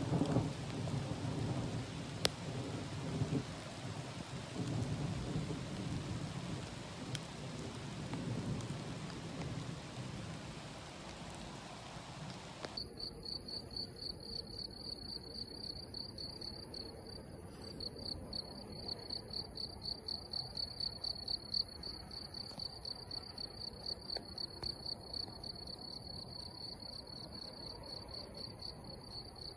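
Rain falling with low thunder rumbling through the first dozen seconds. About thirteen seconds in the sound cuts abruptly to crickets: a steady high-pitched, rapidly pulsing trill with the rain gone.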